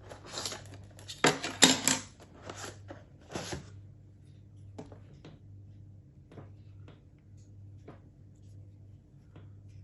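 Packaging and a cable being handled during an unboxing: several loud rustling, crinkling bursts in the first few seconds, then scattered light clicks and taps, over a faint steady hum.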